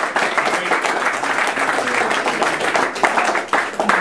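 A small crowd applauding, many hands clapping at once, the clapping thinning to scattered claps near the end.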